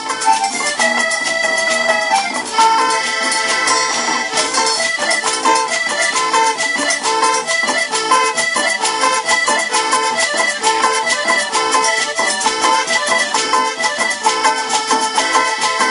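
A tropical dance band playing live: an instrumental passage with a steady, even percussion beat under a held, accordion-like melody line.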